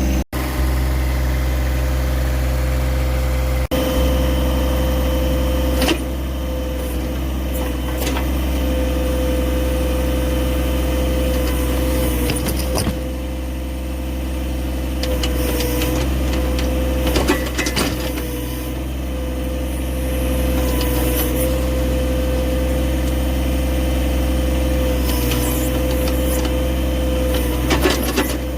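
John Deere 1023E compact tractor's three-cylinder diesel engine running steadily while the backhoe works, with a steady whine over the engine and occasional short knocks and scrapes.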